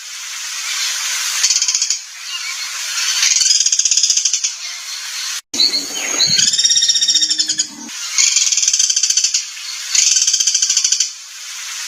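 Recorded harsh bird song used as tutoring material for cage songbirds: rasping, rapidly pulsed trill phrases repeated about every two seconds. About halfway through there is a brief cut, followed by a different ringing call with a lower tone under it.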